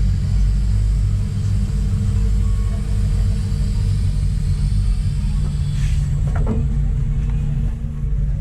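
Kobelco SK200 hydraulic excavator's diesel engine running steadily with a deep rumble, with a brief knock a little past six seconds in.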